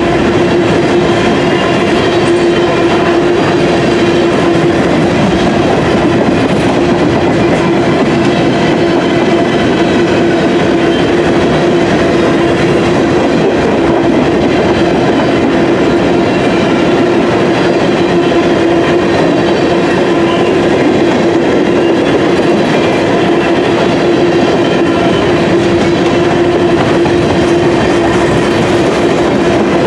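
Covered hopper cars of a freight grain train rolling past, their steel wheels running steadily on the rails with a constant hum.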